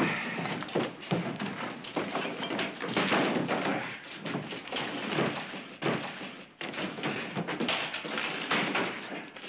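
Wooden beams and debris being hauled and dropped by hand: irregular thuds, knocks and scraping with no steady rhythm.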